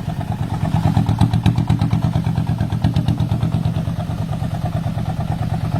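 Diesel engine of a homemade farm transport vehicle running steadily under a full load, with an even pulsing beat and some light rattle.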